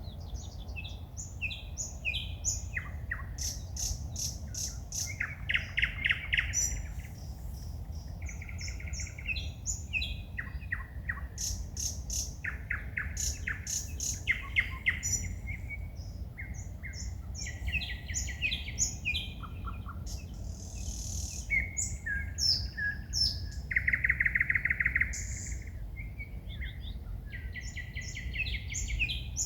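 A songbird singing at night: a varied song of short phrases, each made of fast rattling trills, repeated notes and high whistles, following one after another. A steady low rumble lies underneath.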